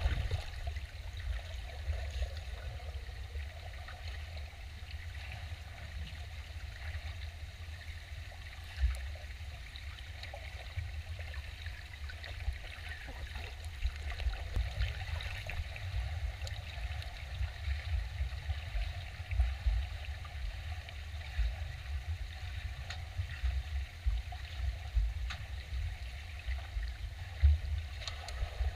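Swimming pool water heard from underwater: a low, muffled rumble with uneven surges and faint splashes and clicks as a swimmer swims breaststroke overhead.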